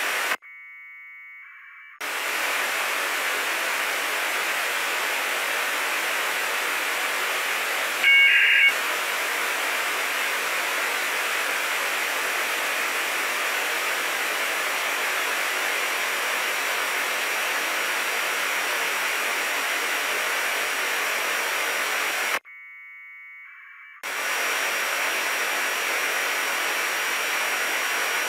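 Open-squelch FM receiver hiss from an RTL2832 SDR dongle tuned to the 145.825 MHz APRS channel. Twice the hiss drops out for about a second and a half while an APRS packet burst of 1200-baud AFSK data tones comes through from a Yaesu VX-8DR handheld's beacon. About eight seconds in there is a brief, much louder tone burst.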